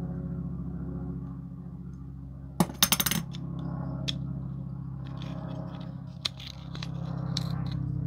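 Die-cast metal parts of a Matchbox Audi Quattro model, the body shell and base plate, clicking and clinking against each other as they are handled: a quick cluster of sharp clicks about two and a half seconds in, then scattered lighter ticks. A steady low hum runs underneath.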